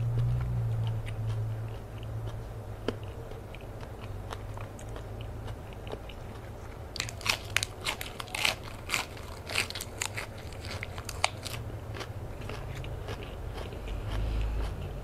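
Crisp romaine lettuce leaf crunching as it is bitten and chewed close to the microphone, with a quick run of loud crunches for about three seconds near the middle and softer chewing around it.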